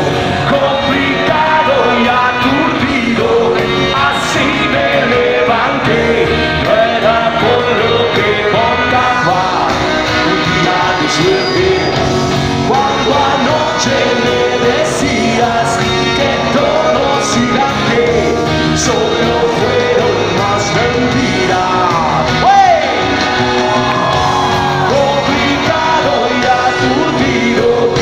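Live rock band playing loudly, led by electric guitar, heard from the audience.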